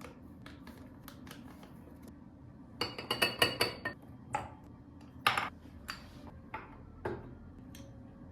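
Dishes and cutlery being handled: light clicks, then a burst of ringing clinks and clatter about three seconds in, followed by a few single clinks.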